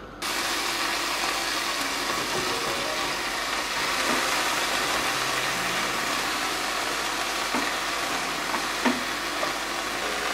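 Mixed vegetables and rice sizzling steadily in a hot frying pan while being stirred with a wooden spatula. A few light knocks and scrapes of the spatula against the pan come in the second half.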